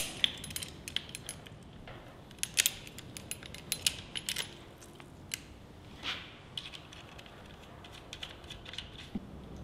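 Scattered metallic clicks and clinks of locking pliers and bolts working against the aluminium rope-seal housing halves as they are squeezed together, thickest about two to four and a half seconds in.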